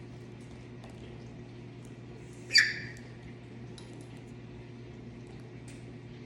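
African grey parrot giving one short, loud squawk, slightly falling in pitch, about two and a half seconds in, over a steady low hum.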